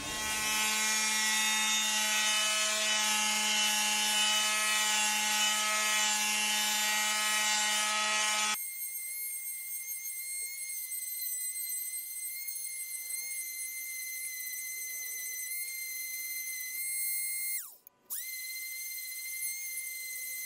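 Small electric sander running against the edge of a 5 mm carbon fiber plate, rounding the edge: a steady motor hum. About eight seconds in the sound changes abruptly to a high steady whine, and near the end the motor briefly drops in pitch and cuts out before starting up again.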